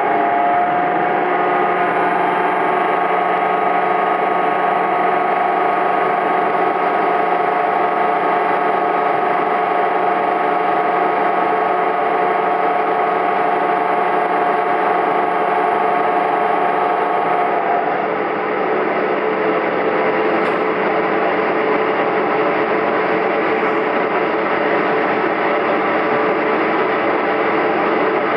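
Diesel railcar running, heard from inside the passenger cabin: a steady rumble of engine and wheels on rails with a whine of several held tones, which drops away about two-thirds of the way through.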